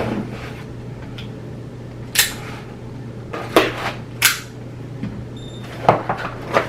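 A delivered package being opened by hand: five short, sharp rustles and knocks of packaging over a steady low hum.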